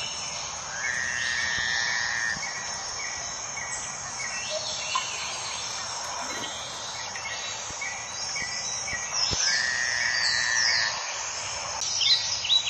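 Birds singing, with repeated chirps and trills that come louder about a second in and again near ten seconds, over a steady background hiss.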